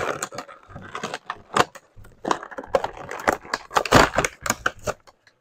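An action figure's cardboard box packaging being torn open: irregular crackling rips and crinkles, the loudest tear about four seconds in, stopping just before the end.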